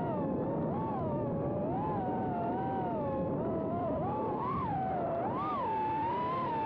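FPV drone's electric motors and propellers whining, the pitch rising and falling constantly with the throttle, over a steady rushing noise.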